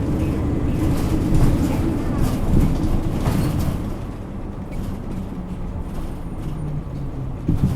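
Isuzu Erga Mio city bus engine running under load, then easing off about four seconds in and carrying on at a lower, steadier note. A short knock comes near the end.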